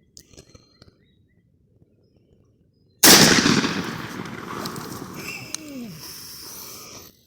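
A single blast from a 12-gauge Winchester SXP pump shotgun firing a 3-inch turkey load, about three seconds in, after a near-quiet stretch with a few small clicks. The report hits suddenly and dies away slowly over several seconds.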